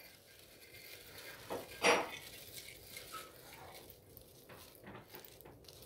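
Light clinks and rustles as Christmas ornaments are handled and hung on an artificial tree's branches, with one short, louder sound about two seconds in.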